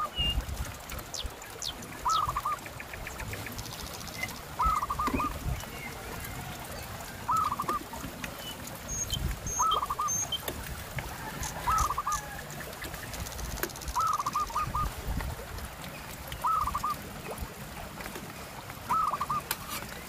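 An animal calling over and over, about once every two and a half seconds, each call a quick run of three or four short notes.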